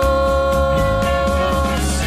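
A man's singing voice holding one long steady note, the last syllable of a sung line, over a backing track with a steady bass. The held note stops near the end while the backing music carries on.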